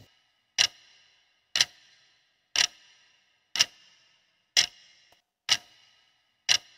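Quiz countdown-timer sound effect: a clock ticking once a second, seven ticks in all, each with a short ringing tail.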